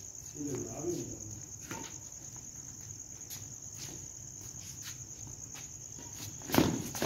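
Crickets chirping in a steady, fast high trill. A short voice comes in about half a second in, and a few faint knocks follow, with one loud sharp hit near the end.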